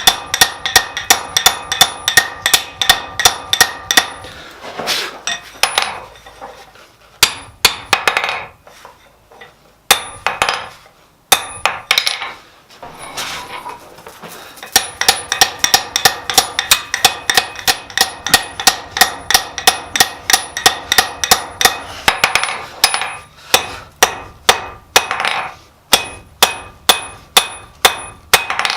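Blacksmith's hammer striking steel on an anvil in hand forging, each blow ringing. The blows come in steady runs of about three a second, with a sparser stretch of single strikes in the middle.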